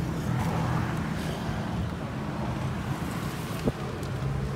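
A car engine idling steadily, with a single sharp click about three and a half seconds in as the Honda Mobilio's driver's door latch is pulled open.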